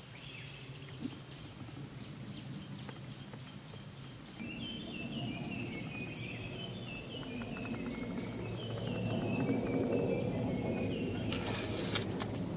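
Steady high-pitched insect drone, with a bird calling a run of short falling notes from about four seconds in.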